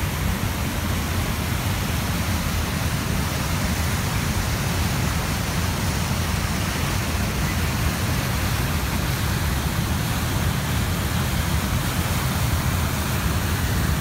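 Niagara River rapids rushing: a steady, even roar of white water with a strong low rumble.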